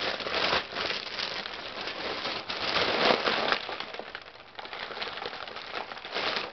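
Silver foil (mylar) balloon crinkling and rustling irregularly in the hands as helium is breathed in from its neck.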